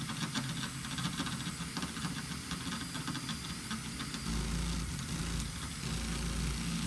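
Cordless drill running under load, a 3/16-inch bit grinding into a steel rivet head. The drill starts suddenly and runs steadily, then stops abruptly near the end.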